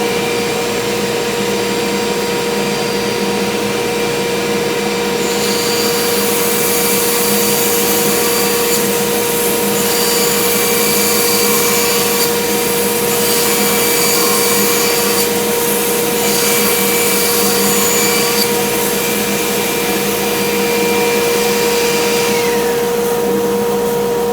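Bandsaw running with its dust collection on, a steady machine whine. From about five seconds in, the blade cuts through 2.5-inch-thick plywood, a hissing sawing sound with brief dips, until the cut ends shortly before the end. Near the end one machine is switched off and its higher whine falls away.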